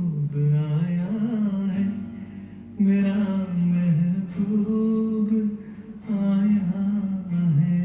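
A man singing a slow Hindi song melody in long, held phrases, with short breaks between phrases about two and six seconds in.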